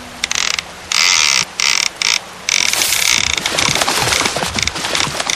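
Ratcheting, rattling mechanical sound effect in choppy bursts, cut off abruptly by short gaps several times.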